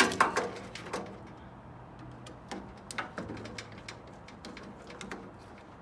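Clatter and knocks of metal parts and hand tools being handled while a microwave oven is taken apart for scrap. The loudest cluster comes in the first second, followed by a few scattered single clicks.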